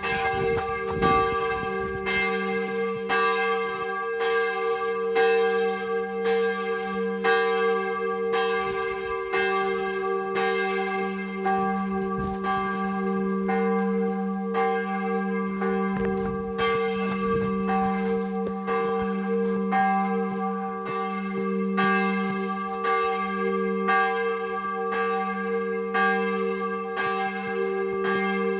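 Church bell ringing steadily, struck about once a second, its tone humming on between strokes.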